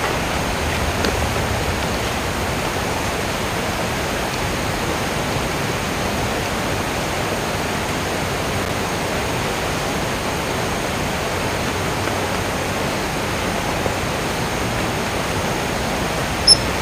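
A steady, even rushing noise with no rise or fall, with one short click near the end.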